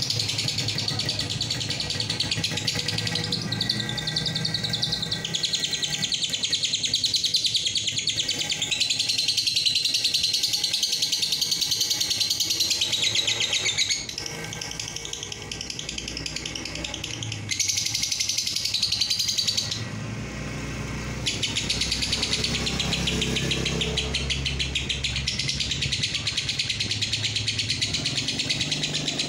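Lovebird singing its long, rapid, high-pitched chattering trill, the 'ngekek panjang' song. The trill runs in long stretches, easing off about fourteen seconds in and pausing briefly around twenty seconds, over a steady low rumble.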